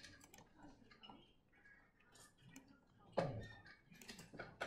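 Faint, scattered small clicks and taps, with one louder short noise about three seconds in.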